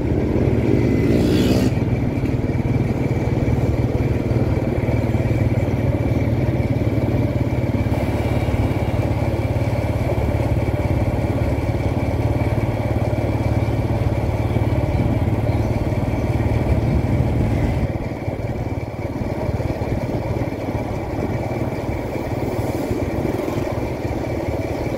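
Motorbike engine running steadily as it is ridden along a street, a low drone that eases off and gets quieter about two thirds of the way through.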